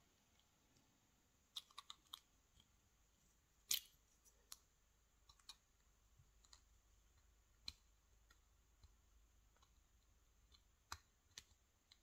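About a dozen faint, scattered metallic clicks as the brass core of an American Lock 1100 padlock is handled and worked with a small metal tool to free its retaining clip; the loudest click comes about four seconds in, and between clicks it is near silence.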